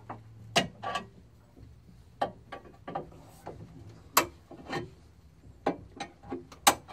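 Scissor jack being wound down by hand with its metal crank rod: a string of irregular metal clicks and clinks as the rod turns in the jack's eye, letting the jack down.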